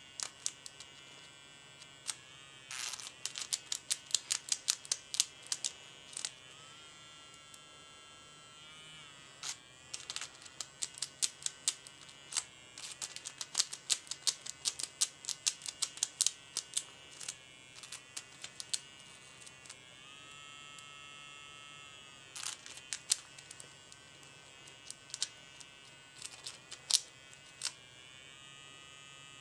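Electric toothbrush buzzing steadily, with a lock pick tied to it rattling against the pins inside a lock: clusters of rapid sharp clicks that come and go as the pick is worked.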